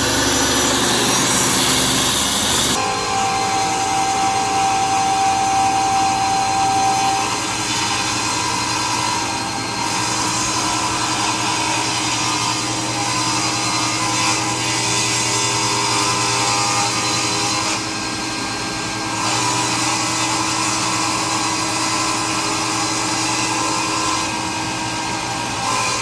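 Ryobi power saw running steadily as it cuts through a 1.5-inch butcher block countertop, its pitch shifting slightly a few times as it works through the cut.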